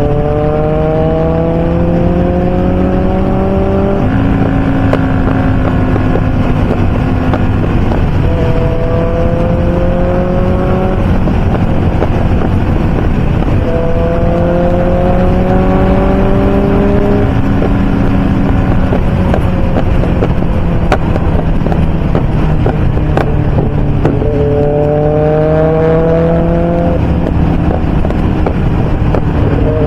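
Motorcycle engine pulling hard at highway speed, its note climbing in pitch and dropping back with each upshift, several times over, over a steady rush of wind.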